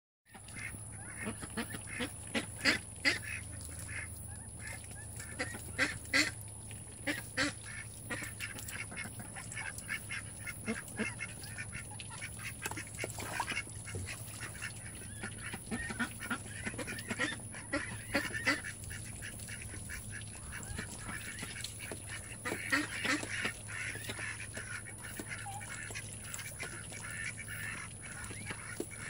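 A white domestic duck hen and her duckling calling: a steady string of short, repeated calls, with a few louder ones here and there.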